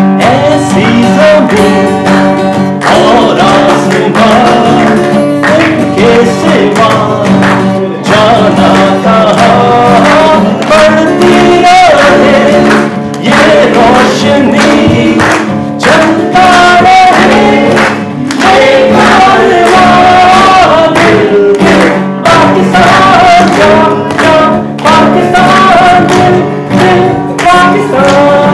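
A man singing a song in phrases while strumming an acoustic guitar.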